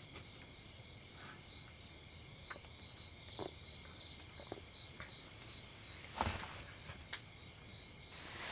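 Crickets chirping in an even pulse of about three to four chirps a second, over a steady high trill of other night insects. A brief louder noise comes about six seconds in.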